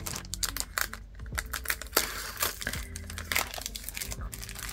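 A clear plastic sleeve and a paper envelope being handled and pressed flat, crinkling and rustling in a fast, uneven run of small clicks and crackles.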